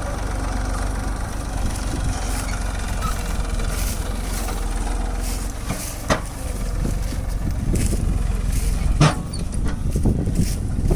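Engine running steadily with a low rumble, with two sharp knocks, one about six seconds in and one about nine seconds in.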